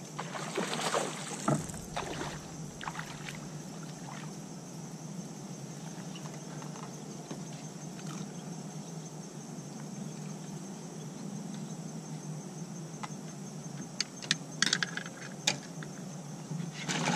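A hooked bass splashing at the surface beside the boat during the fight, then a few sharp knocks and clatters on the boat deck near the end as the fish is landed, over a steady low hum.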